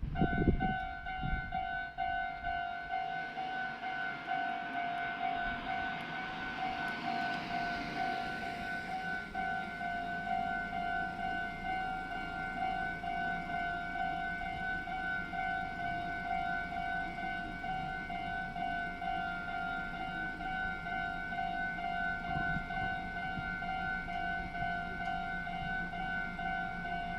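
Japanese railway level-crossing warning bell ringing steadily, its electronic 'kan-kan' tones pulsing quickly; it starts at the very beginning, signalling that a train is approaching. A rushing noise swells and fades about a quarter of the way through.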